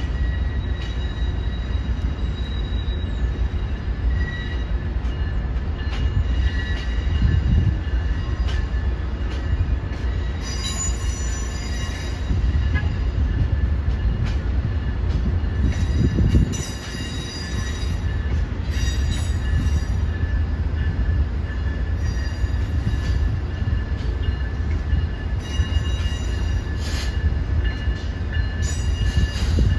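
Amtrak passenger train of stainless-steel Amfleet coaches rolling past, a steady low rumble with wheels squealing in several high steady tones and scattered clicks over rail joints.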